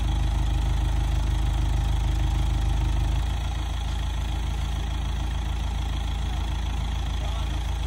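Engine of a telescopic rough-terrain forklift idling steadily with a low, even pulse; it drops slightly in level about three seconds in.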